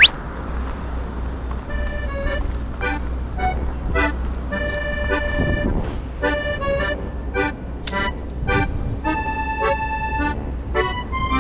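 Background music: a light tune of short, rhythmic notes with an accordion-like timbre, over a steady low rumble.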